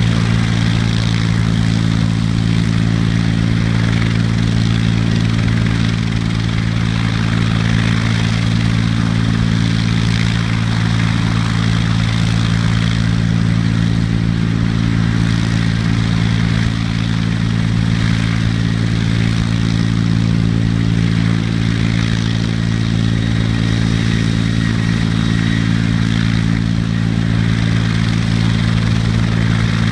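Helicopter running steadily, a loud, even drone with a low hum that holds the same pitch and level throughout.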